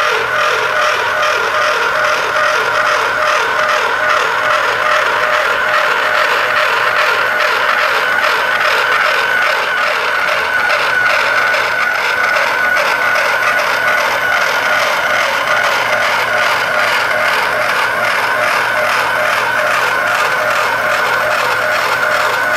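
Portable pipe end-prep machine trimming the end of a 6-inch schedule 80 carbon steel pipe: the motor runs steadily with a high whine while the cutting tool scrapes through the steel, without a break.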